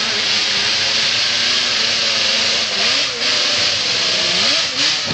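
Yamaha Banshee ATV's two-stroke twin engine running hard at high revs, the quad stuck and straining against a steep dirt bank. The revs dip and climb back briefly about halfway through and again near the end.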